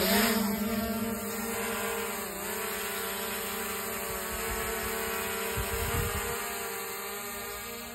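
DJI Mini 4 Pro quadcopter's propellers buzzing in a steady, high hum as it lifts off and hovers close overhead, having just spun up. The pitch dips briefly about two seconds in, a low buffeting rumble hits the microphone around six seconds, and the hum grows a little fainter near the end as the drone climbs.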